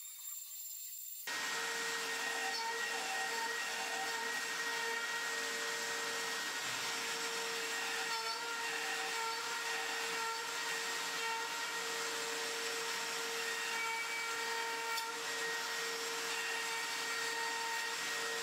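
Makita trim router running as a CNC spindle, a steady high whine with hiss that comes in suddenly about a second in, as it cuts into an MDF spoilboard.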